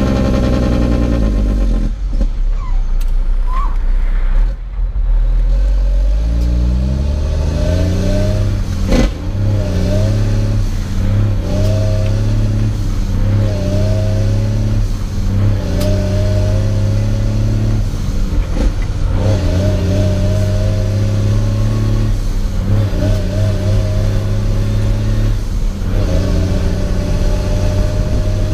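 Semi-truck diesel engine heard from inside the cab as the driver works an 18-speed manual gearbox: the engine note falls and dies down in the first few seconds, then climbs from about six seconds in and rises and drops repeatedly through the shifts, with a few sharp clunks.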